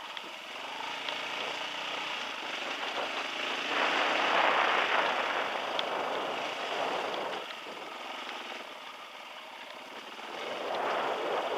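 Dirt bike engine running at low throttle on a descent, with two swells of rushing noise, the louder about four seconds in and another near the end.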